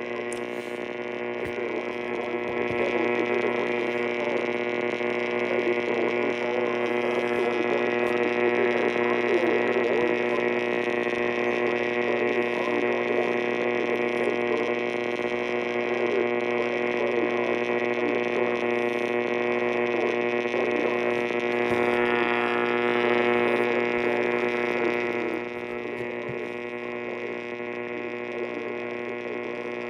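A steady electrical buzz over a radio broadcast, loud and unchanging, with a dense, even stack of overtones. It gets a little brighter around 22 seconds in and drops slightly in level about 25 seconds in.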